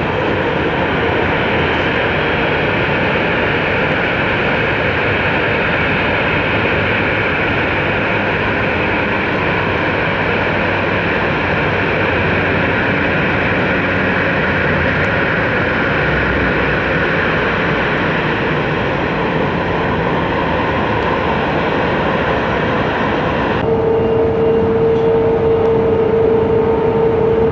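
Jet engines of an Airbus A350-1000, Rolls-Royce Trent XWB, running steadily as the airliner rolls out after landing. Near the end the sound cuts abruptly to another jet airliner, with a strong steady tone over its engine noise.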